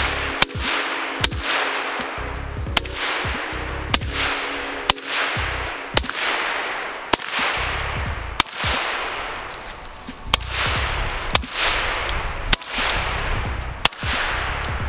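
Suppressed 11.5-inch BCM AR-15 with a SureFire Mini 2 suppressor firing 112-grain ammunition in slow single shots: about a dozen sharp cracks roughly a second apart, each with a short fading echo. Background music plays underneath.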